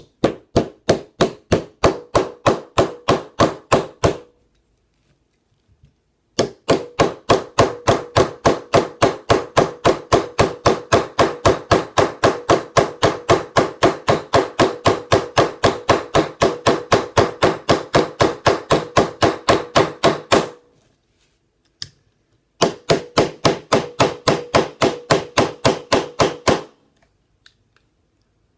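Small hammer tapping the tight-fitting rear pin into the sear housing block of a Smith & Wesson M&P Shield pistol, quick even taps about four or five a second. The tapping comes in three runs, with short pauses about four seconds in and again about twenty seconds in.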